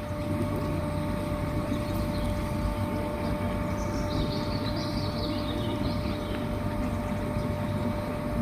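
Steady low mechanical drone with a constant whine above it: motors running at a canal lock as the gates open.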